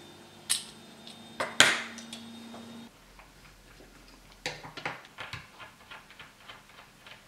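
Small metallic clicks and clinks from handling a small aluminium box with a circuit board fitted inside, with a sharp click about a second and a half in. Later comes a run of light, irregular ticks as a small screwdriver works on screws in the box.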